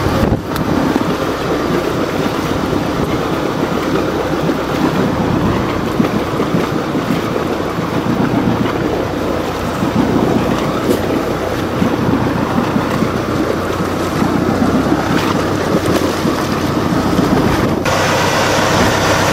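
Boat engine running while the boat is underway, with water rushing past and wind buffeting the microphone. Near the end the sound changes abruptly to a steadier engine note.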